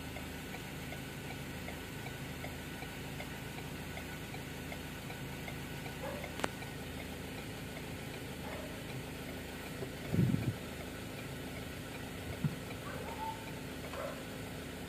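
Ford Everest's turn-signal indicator ticking steadily over a low steady hum, with a sharp click about six and a half seconds in and a short thump around ten seconds.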